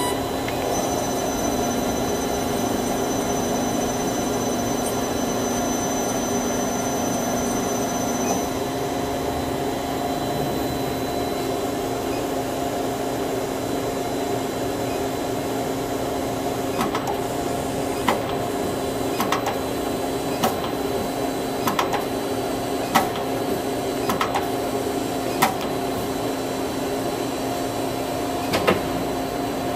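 Star SR-20 CNC Swiss-type lathe under power: a steady mechanical hum with several constant tones and a thin high whine that stops about a third of the way in. From about halfway through, sharp clicks come roughly once a second.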